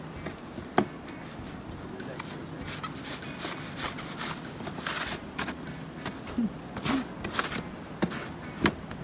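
Irregular footsteps and shuffling scuffs, with a sharp click about a second in, over a steady low hum.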